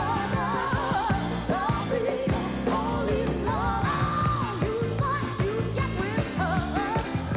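Live band music with drums, and singers ad-libbing in bending, wavering vocal lines; one note is held about four seconds in.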